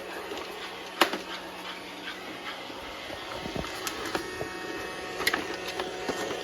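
Roomba robot vacuum running with something stuck on it, with a few sharp clicks or knocks. A steady whine comes in about four seconds in.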